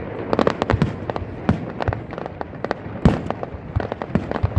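Aerial fireworks going off in quick succession: a dense run of sharp bangs and crackles, with a heavier boom about three seconds in.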